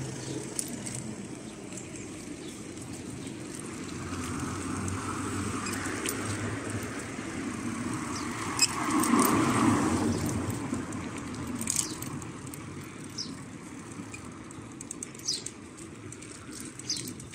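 Outdoor road and traffic noise heard while riding along a street: a steady rumble and hiss that swells to a peak about nine to ten seconds in and then fades, like a vehicle passing. A few short, high bird chirps are scattered through it.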